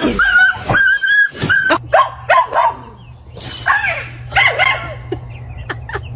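Dog yipping and barking in short high-pitched calls: a quick string of them in the first second and a half, then a few falling yelps. A steady low hum runs underneath from about two seconds in.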